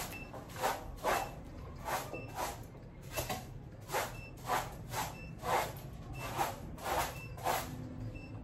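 Light finger snaps keeping a steady beat, about two a second.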